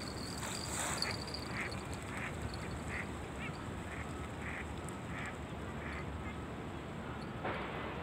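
Ducks quacking in a run of short calls, about two a second, with a louder call near the start and another near the end, over a steady low background noise. A faint small-bird chirp comes about halfway.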